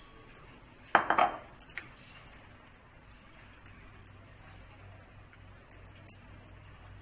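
Kitchen knife on a wooden chopping board while soft pav buns are cut: a sharp, loud clink about a second in, then a couple of light knocks of the blade on the board near the end.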